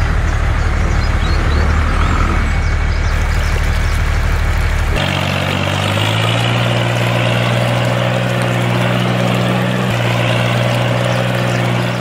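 A vehicle engine running steadily. About five seconds in, the deepest rumble drops out abruptly and a steadier, higher engine hum carries on.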